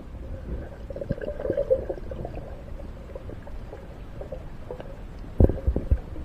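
Water sloshing and gurgling over a low rumble, with several sharp low thumps a little after five seconds in.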